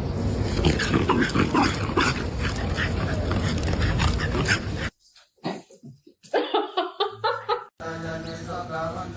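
A dog vocalizing over a loud, dense noise for about five seconds; it cuts off suddenly, then come short pitched calls. Near the end a steady chant-like tone begins.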